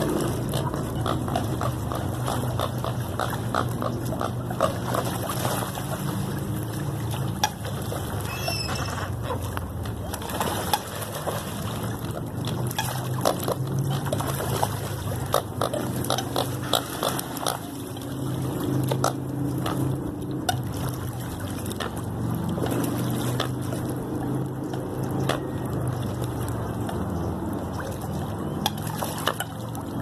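A flock of American coots splashing and jostling in shallow water as they crowd together, with many small splashes and sharp clicks scattered throughout over a steady low rumble.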